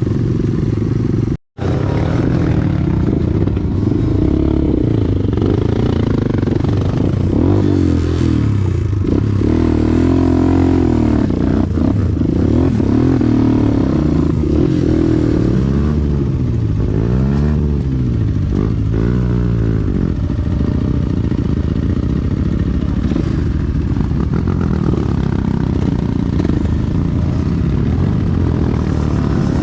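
Motorcycle engine running under way, its pitch rising and falling again and again as the rider works the throttle and gears on rough ground, then holding steadier near the end. The sound cuts out for a moment about a second and a half in.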